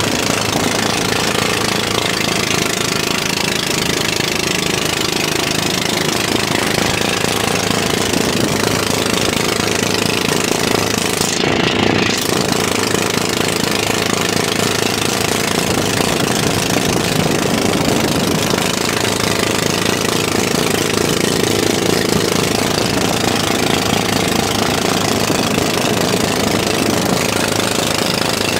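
Inboard engine of a motorised bangka outrigger boat running at cruising speed, a loud, steady, rapid knocking. Rushing wind and water noise run under it.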